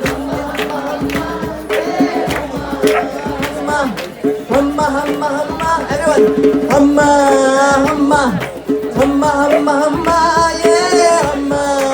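Live acoustic music: a hand drum beating steadily under a wavering, sustained melody held over a steady drone, the melody swelling louder about halfway through and again near the end.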